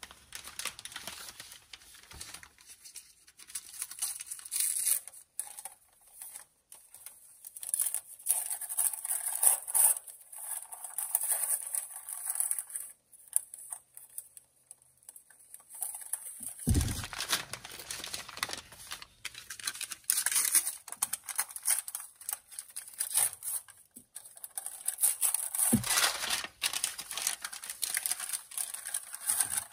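Packaging being torn open and crumpled by hand while a socket set is unpacked, rustling in irregular spells, with two thumps, one about halfway through and one near the end.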